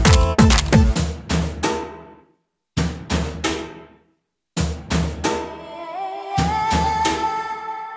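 Film background music with loud drum hits. It stops dead twice for about half a second, then comes back with a long held note over sparse drum strikes.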